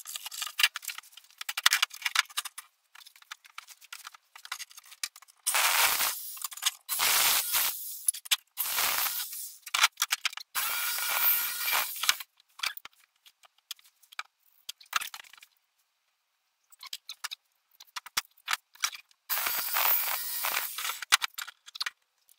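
Jigsaw cutting thin steel plate in a handful of short bursts, one to two seconds each. Between the bursts come scrapes and clinks of metal pieces and tools being handled.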